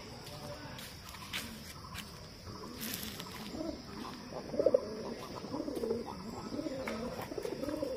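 Feral pigeons cooing: several low, wavering coos overlapping one another, starting about two and a half seconds in.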